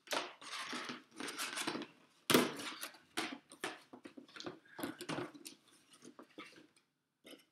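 Packaging being handled: irregular rustling and scraping of a cardboard box and its inner packing, with a sharp knock about two seconds in. The noises thin out near the end.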